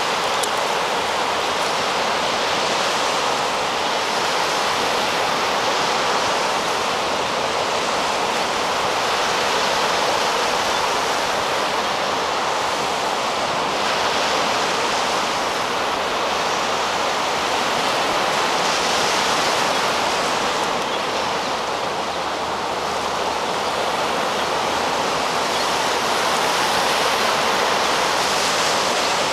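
Sea surf breaking on a sandy beach: a loud, steady wash of noise that swells and eases a little every several seconds.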